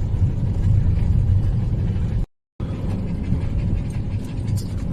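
Steady low rumble of road and engine noise inside the cab of a Maxus V90-based motorhome on the move. The sound cuts out for a moment a little past the middle.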